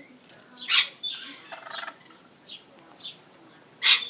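Lorikeets calling: short falling chirps, a stretch of chatter, and two loud harsh screeches, one just under a second in and one near the end.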